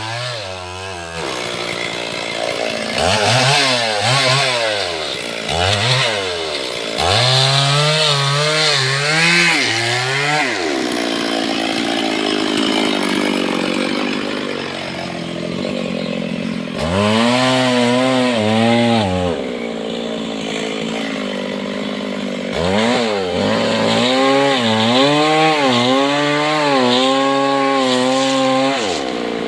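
Stihl MS382 two-stroke chainsaw revving up and down and cutting into teak, its engine pitch climbing sharply on each rev and sagging and wavering through the longer stretches of cut under load.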